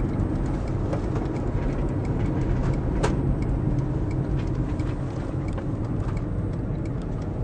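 Cabin road and tyre noise of an electric Citroën Berlingo coasting in freewheel with no traction, its traction chopper having tripped into safety after a regenerative-braking current surge. A steady low rumble, with a single click about three seconds in.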